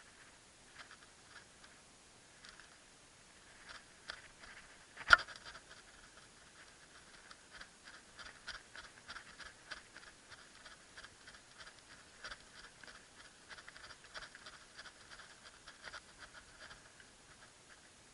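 Zebco Bullet fishing reel being wound in: a run of light, irregular clicks and ticks, sparse at first and then quick and steady through the middle, with one sharp, much louder click about five seconds in.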